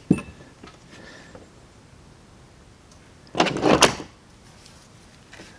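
Carburetor parts being handled at a workbench: a sharp click near the start, then a brief rattling rustle about three and a half seconds in as the diaphragm and slide are picked up and turned.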